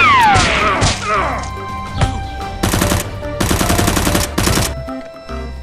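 Gunfire sound effects: falling, zap-like sweeps fade out in the first second, then two bursts of rapid machine-gun fire about two and a half and three and a half seconds in, over faint background music.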